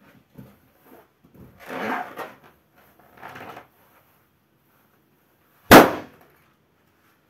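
Bare feet pressing and rubbing on a large black latex balloon, the rubber creaking under the weight, then the balloon bursts with one loud, sharp bang about three-quarters of the way in.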